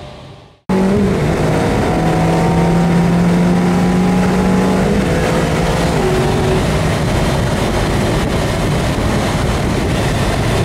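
McLaren MP4-12C's twin-turbo V8 running loud and steady at held revs, starting abruptly after a moment of silence; its pitch steps down slightly about five seconds in.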